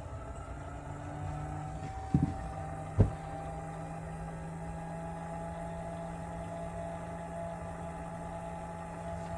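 Cooling fan inside a Race America 3800B race timer, running steadily after power-up with a level whine over a hum. The fan's bearings are badly worn. Two sharp clicks come about two and three seconds in.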